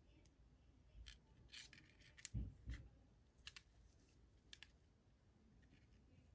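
Faint handling sounds of fishing line being worked into a knot by hand: scattered light rustles and clicks as the line slides and rubs over itself, with two soft thumps about two and a half seconds in.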